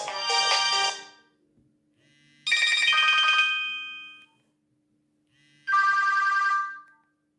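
Nokia X1-01 ringtones from the phone's loudspeaker: a busy melody ends about a second in, then two short chiming tones sound one after the other, each fading out, with silence between them.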